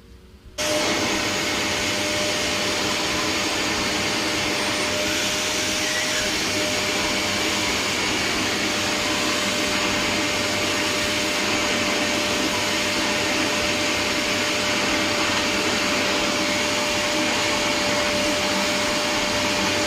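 Bissell PowerClean vacuum cleaner running steadily with a constant whine over its rushing motor noise, coming on abruptly about half a second in.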